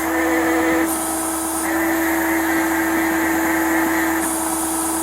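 Hydraulic lift in operation: a steady mechanical hum with a hissing layer that cuts out about a second in and again near the end, as the lift is worked in steps.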